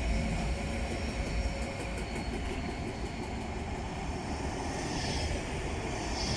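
Train running through the station with a steady low rumble of wheels on rails. There is light rapid clicking from about one to three seconds in, and a high wheel squeal near the end.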